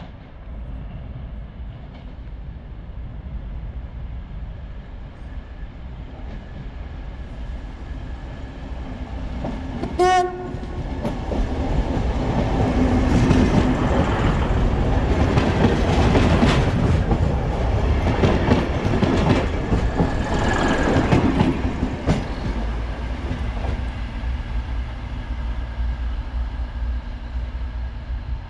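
A passenger train sounds one short horn blast as it approaches, then runs past close by with a loud rumble and wheels clattering over the rail joints. The noise eases off as it moves away.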